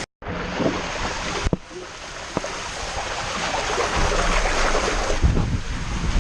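Rushing, splashing water with wind buffeting the microphone, growing louder and heavier about four seconds in.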